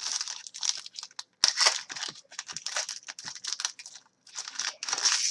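Hockey card packaging being torn open and crinkled by hand: a run of short, irregular rips and crackles, loudest about a second and a half in and again near the end.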